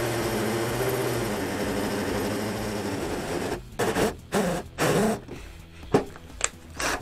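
Cordless drill turning a hole saw through a thin wooden board: a steady motor hum with cutting noise for about three and a half seconds, then short on-off bursts of the drill as the saw cuts through.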